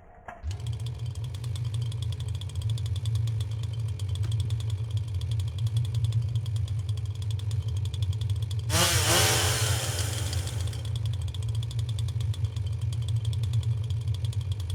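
Washing machine running with a steady low mechanical rumble that starts about half a second in. About nine seconds in, a loud hiss with falling tones lasts around two seconds.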